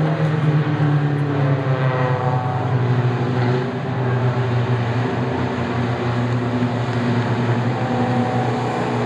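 A field of four-cylinder short-track race cars running at speed together, several engines heard at once. Their pitches rise and fall as the cars pass and go round the track.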